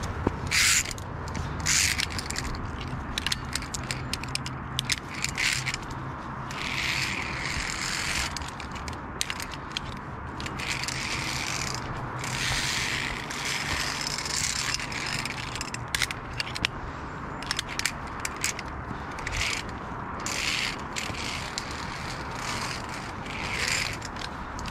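Metal via ferrata carabiners clicking and scraping on the steel safety cable, with repeated short clicks throughout and bursts of leaves and branches brushing past.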